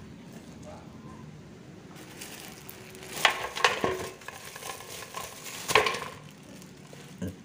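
Vegetables being washed: water runs with a hiss for about four seconds from around two seconds in, with several sharp clatters as the vegetables and container are handled.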